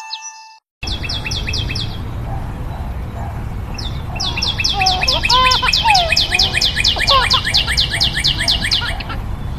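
A bird sings fast trills of sharp downward-sweeping chirps, about six a second: a short run about a second in, then a longer run of about five seconds from the middle. The trills sound over a steady low rumble, with a few lower gliding whistles among them. Just before, the music fades out and there is a moment's silence.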